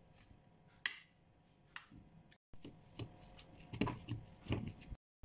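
A steel spoon mashing a boiled potato into chicken mince in a non-stick pan: a sharp clink about a second in, then a run of quick taps and scrapes of spoon against pan. The sound cuts out dead twice, briefly.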